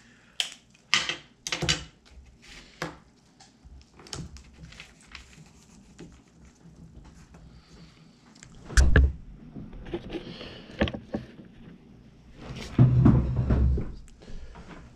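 Clear tape pulled from a roll and torn off, then paper rustling as the tape is pressed down: a few sharp tearing clicks in the first three seconds, a heavy thump about nine seconds in, and a stretch of thumping knocks about thirteen seconds in.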